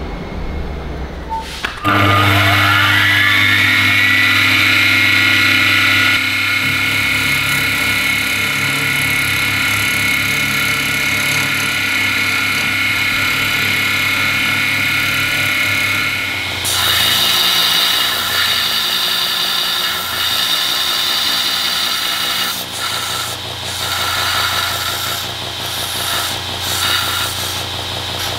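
A milling machine starts, its pitch rising as the spindle spins up, then runs steadily while an end mill cuts a metal block. Partway through, the sound switches abruptly to a belt grinder running, with its level dipping several times near the end.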